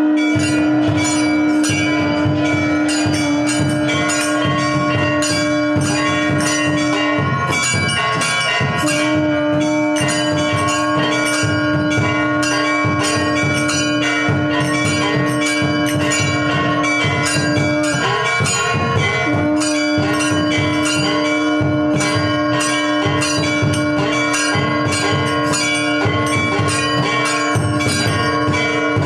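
Temple bells ringing rapidly and without a break during the maha-mangalarati worship, over a long steady tone that breaks off twice.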